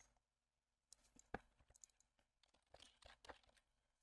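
Faint, scattered clicks and taps of a computer keyboard and mouse in use, with a short cluster of taps near the end, over quiet room tone.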